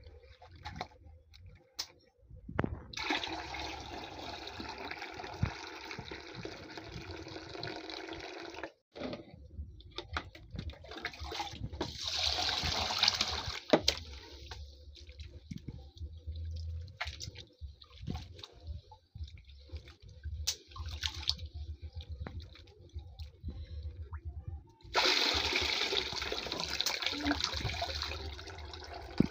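Rice being washed by hand in a plastic basin of water: water sloshing and grains rubbing in several stretches, with the cloudy rinse water poured off into a bucket near the end.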